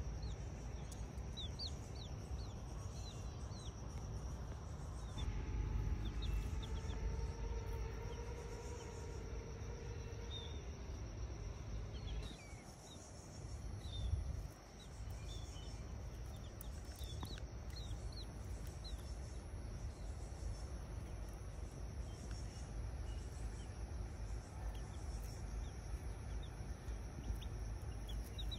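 Baby chick peeping in short, high cheeps scattered throughout, over a steady high insect-like drone and low wind rumble. A humming tone with overtones sounds for about five seconds, starting about five seconds in.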